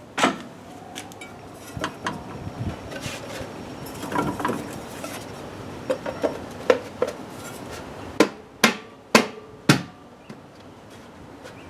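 Knocks and clicks from fitting the snorkel's intake parts by hand: scattered light taps, then four loud, sharp knocks about half a second apart near the end.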